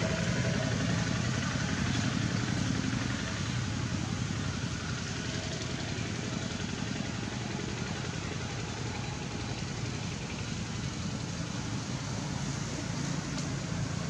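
Steady low background rumble outdoors, with no distinct events.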